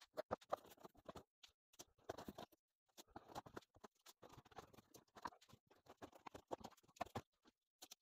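Faint, irregular clicking and light rattling of plastic Kato Unitrack N scale track sections as they are pulled apart and handled over a bin of loose track.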